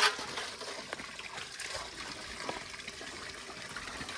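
Water trickling steadily from an outdoor standpipe tap onto a concrete basin, with a sharp knock right at the start and a few lighter clinks as steel tumblers are handled.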